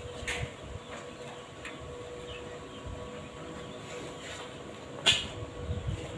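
A few light knocks of a small petrol engine being handled and set on a steel frame, with a sharper clack about five seconds in, over a faint steady hum.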